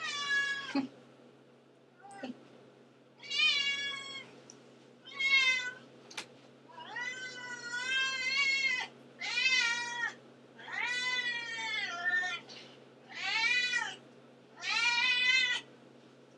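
A domestic cat meowing over and over: about nine meows, some short and some drawn out to nearly two seconds, with brief gaps between them. A single sharp click comes about six seconds in.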